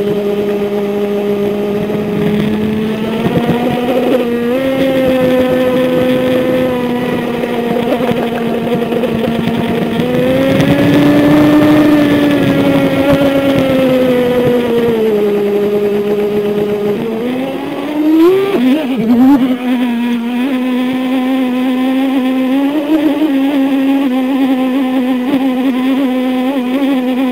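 Brushless motor of a HobbyKing Small Bolt twin-hull RC boat whining at a steady pitch, heard close-up from a camera strapped to the boat. The pitch rises for a few seconds about ten seconds in and falls back. It wavers and jumps briefly a little past halfway, then holds steady again slightly higher.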